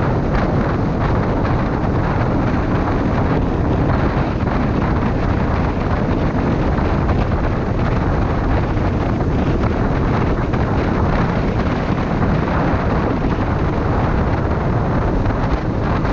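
Steady wind rush over a helmet-mounted camera's microphone at cruising speed, with the Honda CB500F's parallel-twin engine and tyre noise running underneath at an even pace.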